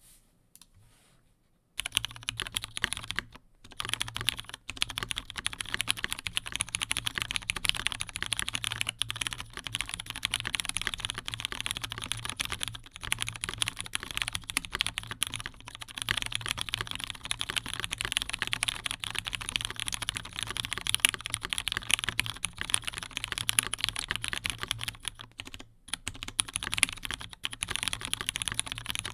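Fast, continuous typing on an Omnitype Bauer R2 custom mechanical keyboard in polycarbonate, with filmed, spring-lubed Brown tactile switches, GMK keycaps and no case foam. The typing starts about two seconds in and pauses briefly twice.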